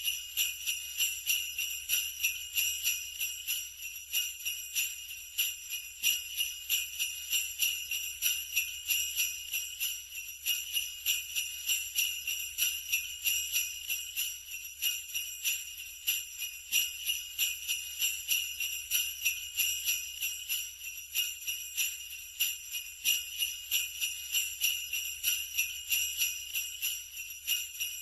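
Sleigh bells shaken continuously in a steady, even rhythm: a bright, high jingling.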